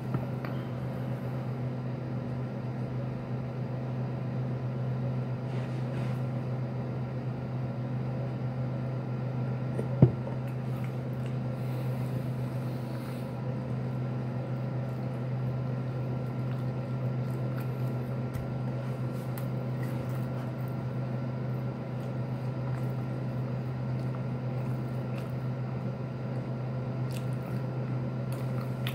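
A person biting and chewing a sandwich, faint under a steady low hum, with one sharp click about ten seconds in.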